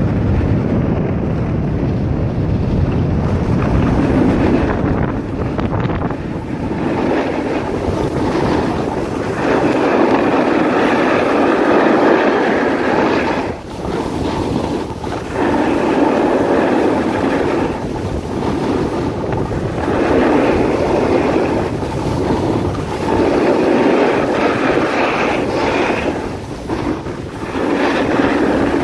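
Skis scraping and hissing over packed snow, swelling every two to three seconds, with wind rushing across the microphone.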